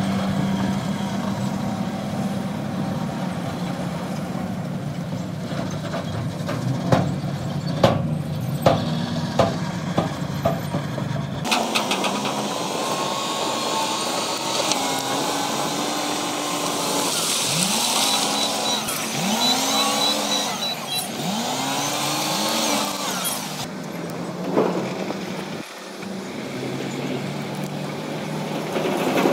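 Heavy diesel machinery at work: a steady engine drone with a handful of sharp knocks, then, after an abrupt change, an engine revving up and dropping back several times in quick succession, before a steady drone returns near the end.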